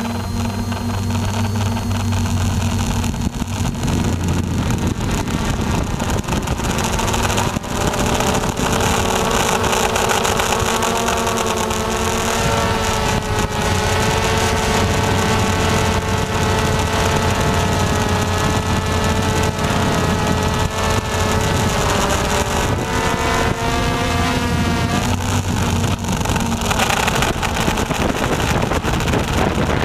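RC Logger NovaX 350 quadcopter's motors and propellers whirring right beside the onboard camera's microphone, over a steady rush of air. The pitch of the motor whine drifts up and down.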